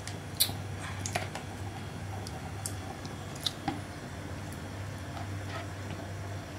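Pieces of raw ikan baung (river catfish) being taken from a plastic basin and dropped by hand into a pot of soup: a few short wet clicks and soft plops, the sharpest about half a second in, over a low steady hum.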